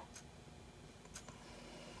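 Faint ticking, one tick about every second: a clock.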